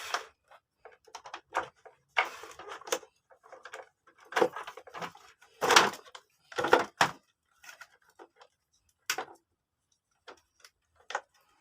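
Parts of a Panasonic vacuum cleaner being handled and taken apart to reach its burnt-smelling motor: irregular knocks and clicks with a stretch of scraping, the loudest knocks in the middle.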